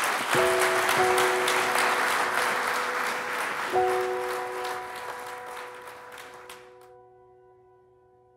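Audience applauding, with soft held music notes underneath. The applause fades out about two-thirds of the way through, and the music notes die away after it.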